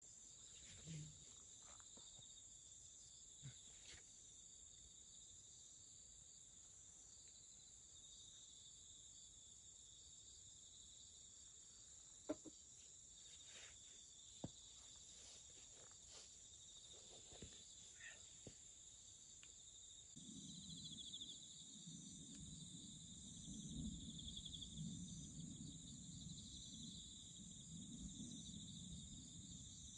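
Faint, steady trilling of an insect chorus in grass, with a few light clicks and knocks in the first half. About two-thirds of the way through a low rustling rumble joins in.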